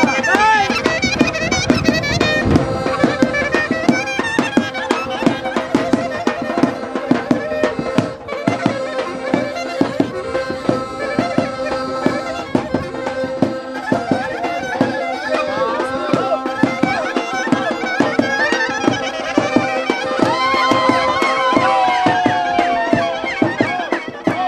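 Traditional Balkan folk dance music: an ornamented wind-instrument melody over a steady held drone, with a regular drum beat.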